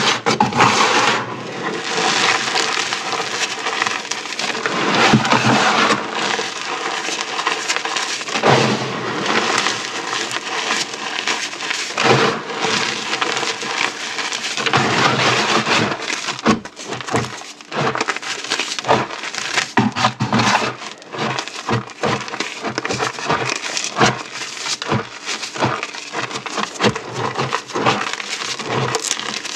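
Dried orbeez hydrogel beads and chalk being crushed: continuous dry crackling and crunching. It is dense at first and turns into separate sharp crunches about halfway through.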